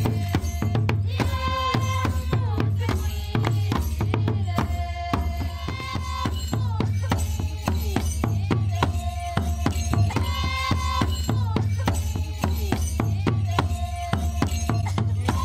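Traditional African dance music: drums and rattles keep a dense, steady beat under a melodic phrase that comes back every few seconds.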